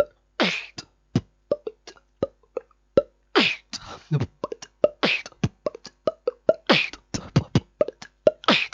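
Mouth-made beatbox pattern built on the pop sound and the hollow clop: a quick run of sharp pops and clicks, many dropping in pitch, with a longer hissing snare-like burst about every 1.7 s.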